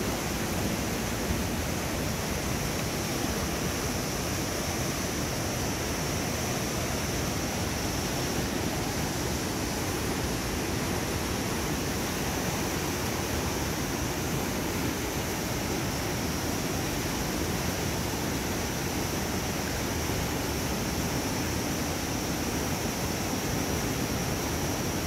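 Steady rushing of a river running high, an even wash of water noise with no breaks.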